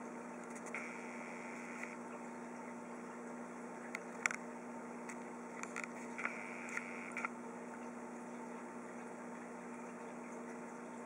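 Steady electrical hum from running aquarium equipment, with a few faint clicks about four to seven seconds in.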